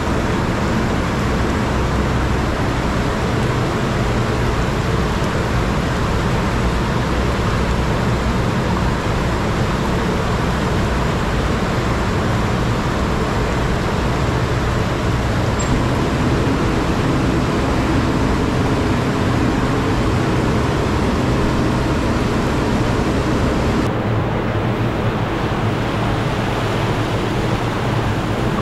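Chicken pieces deep-frying in a large pan of oil over a gas burner: a steady, loud bubbling sizzle mixed with the burner's rush.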